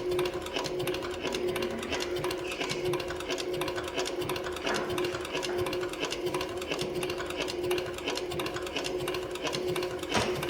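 Cowboy CB 4500 heavy-duty leather sewing machine running, with a steady motor hum under a rapid run of needle-stroke clicks. A louder knock comes near the end, and then the machine stops.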